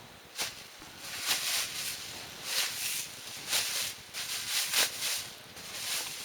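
Plastic bag crinkling in repeated short bursts, about one a second, as a large foam pillow is pushed into it.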